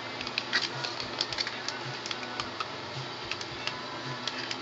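Clear plastic clamshell packaging crinkling and clicking in the hands as it is handled and pried open: a string of small, irregular clicks and crackles.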